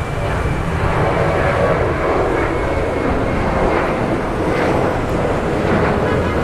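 Airliner jet engines running with a steady, continuous rumble, a little louder after the first second.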